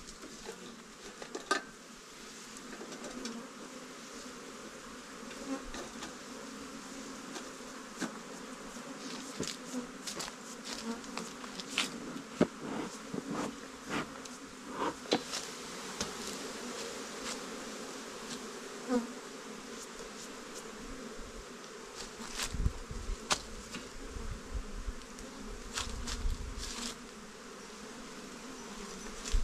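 A swarm of bees buzzing steadily at close range, with scattered sharp clicks and knocks. A few low thumps come near the end.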